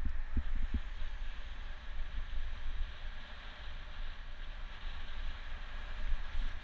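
Wind buffeting the microphone of a bicycle-mounted camera, with a steady hiss of tyre and road noise from riding. There are a few low thumps in the first second.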